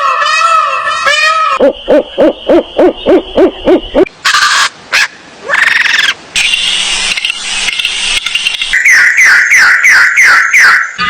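A string of different animal calls, one short clip after another, changing every couple of seconds. Among them is a run of about nine even, low hoots, and near the end a rapid series of short falling calls.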